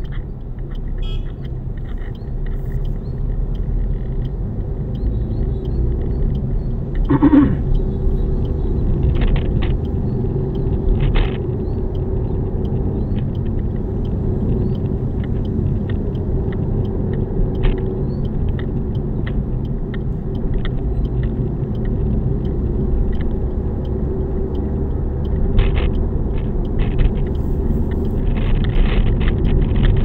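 Cabin sound of a 2023 Suzuki Dezire with a manual gearbox, driving: a steady low road rumble in which the engine is barely audible. Over it come scattered light rattles from a phone camera knocking against the dashboard and a rosary hitting the dash cam, with one louder knock about seven seconds in. A hiss grows near the end.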